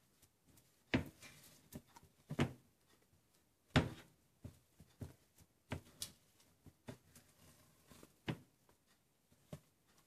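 Irregular knocks and clicks of objects being handled and set down, the loudest about one, two and a half, and four seconds in.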